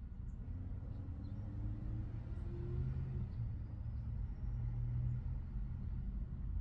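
Low rumble of a distant motor vehicle engine, humming steadily, growing louder through the middle and easing slightly near the end.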